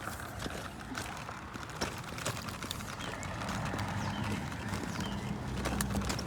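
Outdoor ambience on foot: footsteps and small clicks, a few faint bird chirps, and a low steady hum that comes in about halfway through.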